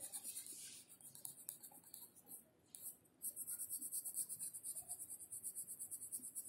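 Graphite pencil scratching on notebook paper in quick, rhythmic back-and-forth shading strokes, pausing briefly a little before halfway and then going on.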